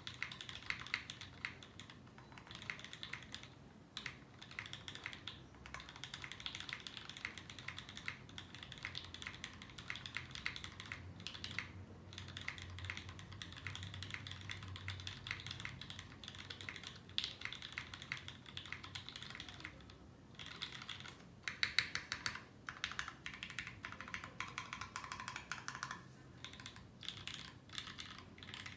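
Continuous typing on a DC60 60% mechanical keyboard with lubed milky Gateron Yellow linear switches, a carbon fiber plate and GMK Hyperfuse keycaps. It is a rapid run of key clicks with a few brief pauses.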